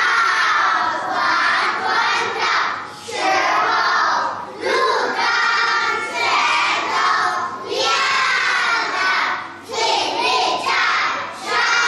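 A chorus of young children reciting a Mandarin poem loudly in unison, in short phrases with brief pauses between lines.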